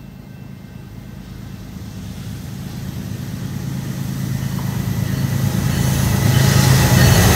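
GE ES44DC and EMD SD70ACe diesel locomotives leading a freight train on approach, their engines' low drone growing steadily louder as they come closer. Near the end, a higher rushing noise joins in.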